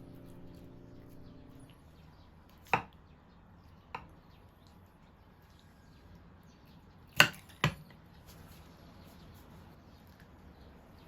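Four sharp knocks of kitchen utensils against a hard surface: two about a second apart near the start, then a louder pair half a second apart about seven seconds in.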